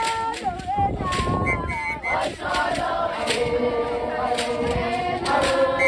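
A group of girls and young women singing a chant together in chorus, with sharp percussive beats now and then.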